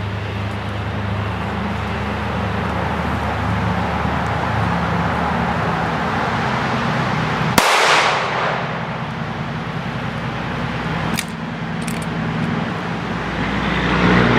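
A single shot from a Glock 19X 9mm pistol firing 115-grain ball ammunition: one sharp crack about halfway in, trailing off in a long echo, over a steady background rumble. Two faint clicks follow a few seconds later.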